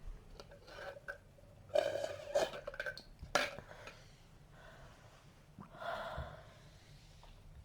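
A person hiccuping: a quick cluster of short, sharp voiced hics about two seconds in, a single sharp one near three and a half seconds, and a softer voiced one around six seconds.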